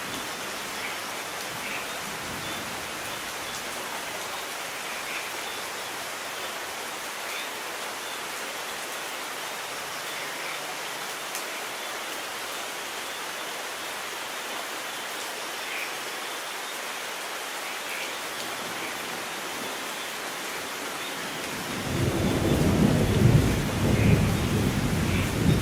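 Steady heavy rain, with a deep roll of thunder rumbling in near the end.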